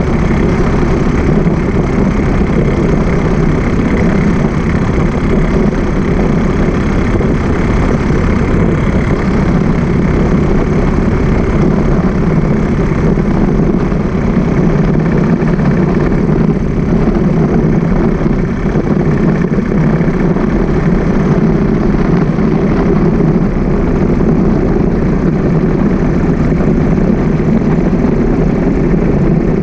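A motorbike riding along a city highway: steady engine hum under loud, unbroken wind and road noise on the microphone.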